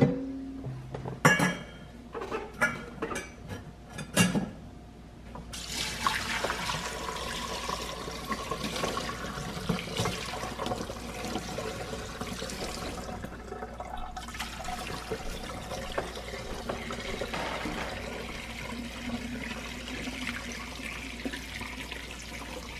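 A few knocks and clinks as a glass mason jar and a mesh strainer are set in a stainless steel sink, then from about five seconds in, bone broth pours steadily from a pot through the mesh strainer into the jar, with a brief lull about halfway through.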